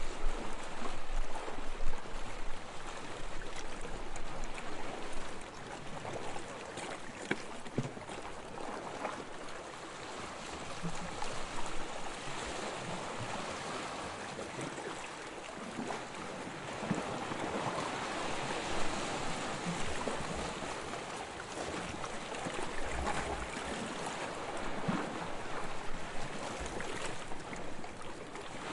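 Sea water washing and lapping, swelling and easing every few seconds, with a few small knocks. Wind buffets the microphone briefly near the start and again later.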